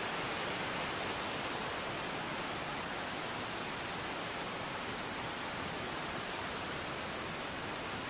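Steady rush of falling water, an even noise without pitch.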